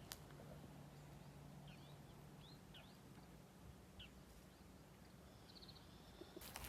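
Near silence with a few faint, short bird chirps, and a rush of noise starting just before the end.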